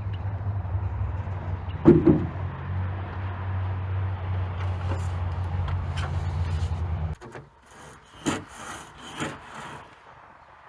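An engine running with a steady low hum, with a loud knock about two seconds in; the engine stops abruptly about seven seconds in. A few sharp scraping knocks follow near the end.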